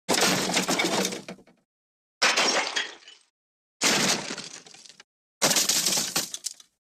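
MGM 'elephant smash' stock crash sound effect, played four times in a row. Each is a sudden smash with breaking glass that dies away within about a second, with dead silence between.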